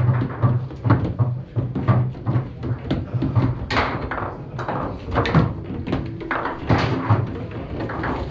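Foosball table in play: irregular sharp knocks and clacks as the ball is struck by the rod men and hits the table, several a second with short pauses.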